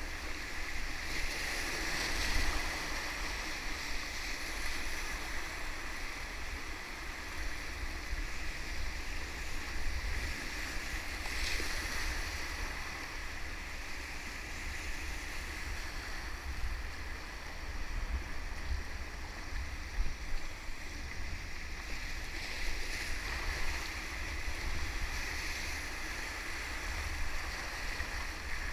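Rushing whitewater river, a steady splashing rush with a low rumble beneath it.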